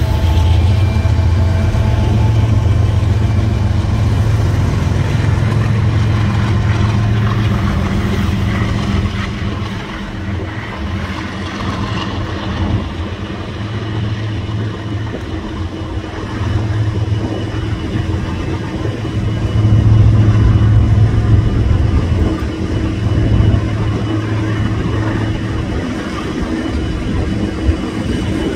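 Norfolk Southern diesel-electric locomotive passing at the head of an intermodal freight train, its engine running with a loud low drone and a steady hum. It is loudest for the first several seconds, fades somewhat, then swells again midway.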